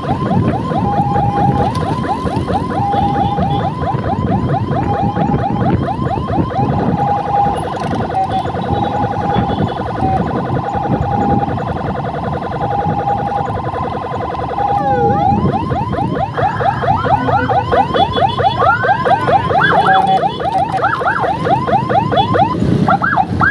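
Electronic escort siren on a motor scooter, run from a handlebar push-button controller. It gives rapid repeating chirps under a steady tone that keeps breaking off and returning. About fifteen seconds in it switches to a faster up-and-down warble.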